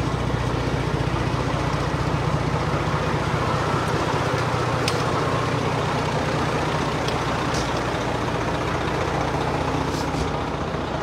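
Fire truck engine idling steadily with a low, even hum, with a few light clicks over it.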